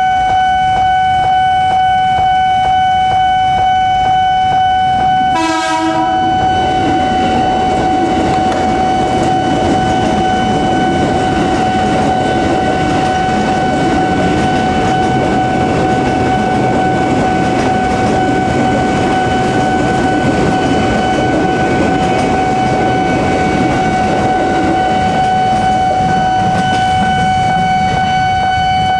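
A train passing slowly over a level crossing in heavy rain, its wheels rumbling and clattering on the rails. A steady high ringing tone runs throughout, and there is a short blast about five and a half seconds in.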